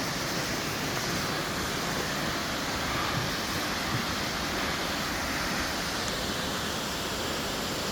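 Steady rushing of a waterfall, an even wash of falling-water noise that holds level throughout.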